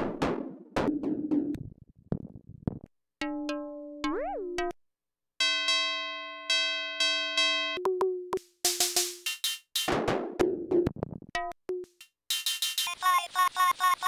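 Beehive Eurorack digital oscillator (a Mutable Instruments Plaits clone) triggered over and over while its synthesis models and controls are changed. Short decaying percussive drum hits give way to repeated pitched synth notes, one with a quick upward swoop in pitch, then more noisy hits and a dense buzzy tone near the end.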